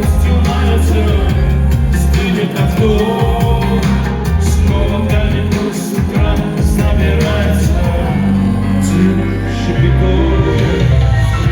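Music: an instrumental break in a pop-rock song, with a heavy, steady bass line, regular drum hits and melodic lead lines above.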